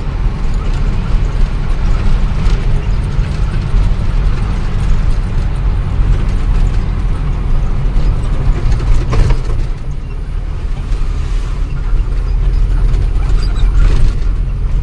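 Ashok Leyland Ecomet 1214 truck's diesel engine and road noise heard inside the cab while driving, a steady low rumble with occasional knocks and rattles.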